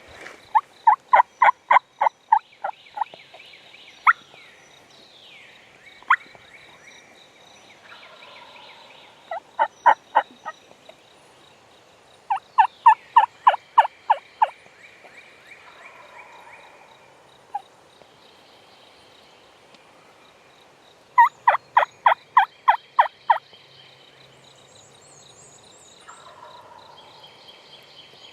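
Turkey yelping: four runs of about six to ten evenly spaced, loud yelps, each run lasting a second or two, with faint songbirds behind.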